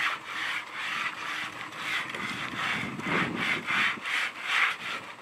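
Coarse 100-grit sandpaper rubbed by hand back and forth along a scuffed vinyl boat rub rail, a scratchy stroke about three times a second. This is the rough first grit, knocking off the big scuff marks.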